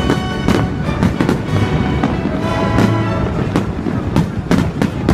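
Aerial fireworks shells bursting in quick succession, about three bangs a second, over loud music with long held notes.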